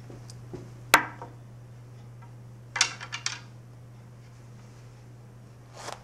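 Billiard balls clacking: one sharp crack about a second in, then a quick run of several clacks around three seconds in.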